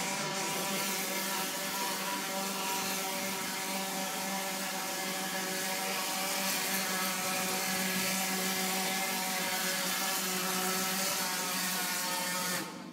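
Plaster spraying machine running, a steady droning hum with a strong hiss of air and plaster being sprayed through the hose and gun onto the wall. It cuts off suddenly near the end.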